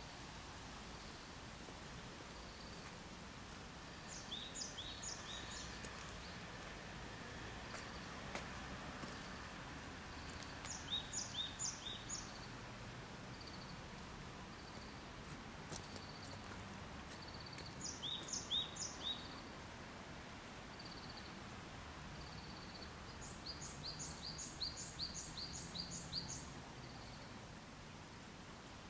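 A small songbird singing short phrases of quick, high notes, four times about seven seconds apart, the last phrase longer. A faint, thin note repeats about once a second over steady outdoor background noise.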